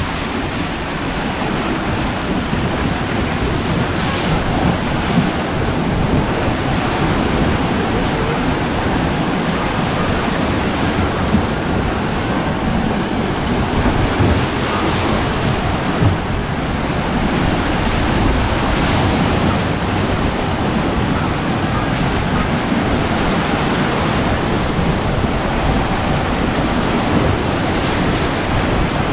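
Rushing, churning water as jet-ski ride gondolas plough through a water basin at speed, throwing up spray, with wind buffeting the microphone.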